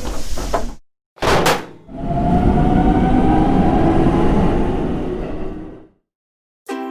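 A short whoosh, then a train running past for about four seconds, its rumble carrying a slowly falling tone before it fades out.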